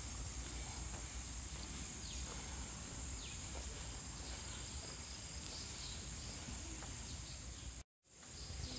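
Steady high-pitched drone of insects, with a few faint short chirps and a low rumble of wind or handling on the microphone. The sound cuts out completely for a moment near the end.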